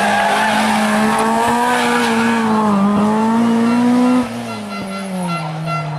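Ford Escort Mk2 rally car's engine running at high revs, held nearly steady with slight rises and dips. About four seconds in it gets quieter and the engine note falls.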